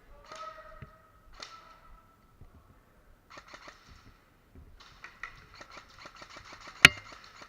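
Airsoft gun firing in several short bursts of rapid clicks, with one sharp crack near the end.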